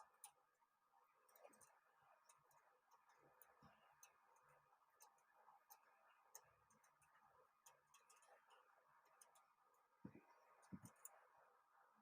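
Near silence: faint scattered ticks and clicks over a faint steady hum, with two soft thumps near the end.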